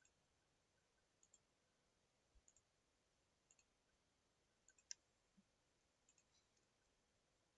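Faint clicks of a computer mouse, mostly in close pairs about once a second, the loudest about five seconds in, over near silence.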